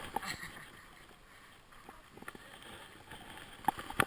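Skis sliding and scraping over packed snow as a steady hiss, broken by a few sharp clicks and knocks, the loudest near the end.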